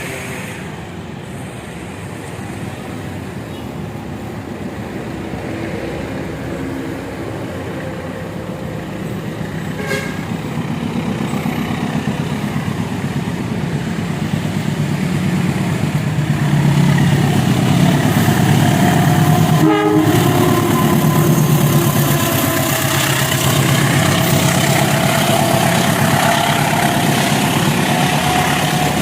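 Train approaching and passing close by. Its low rumbling drone grows louder through the second half, with a faint steady whine above it and a couple of sharp clicks.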